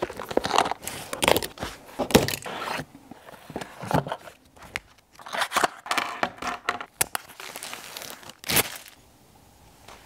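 Unboxing: a cardboard box and its packaging handled and opened, with irregular rustling, crinkling and scraping and a few sharper knocks, dying away about a second before the end.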